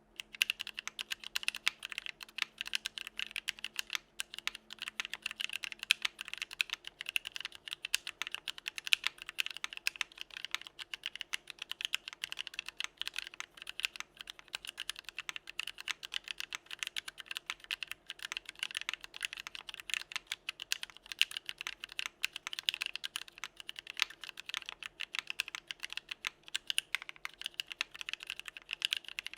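Continuous fast typing on a mechanical keyboard: a Frog by Geonworks with an aluminium plate and lubed Novelkeys x Kailh Box Cream linear switches with POM housings and stems, no foam or dampening. A dense stream of sharp key strikes and bottom-outs.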